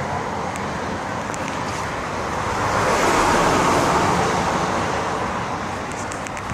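Steady road-traffic noise that swells as a vehicle passes about three seconds in, then eases off.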